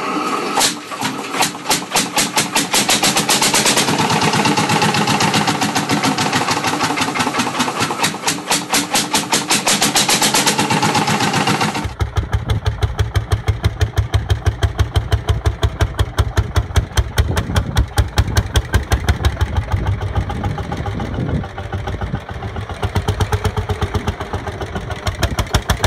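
Lanz Bulldog tractor's horizontal single-cylinder two-stroke hot-bulb engine running at low speed, a steady rapid chugging of evenly spaced firing beats. About twelve seconds in, the sound cuts to a second, deeper-sounding recording of the engine running.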